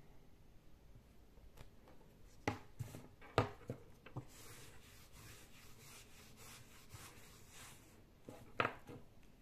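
A handful of light knocks as a small plastic-framed whiteboard is set down and handled, then several seconds of soft rubbing as the board is wiped clean, and one more knock near the end.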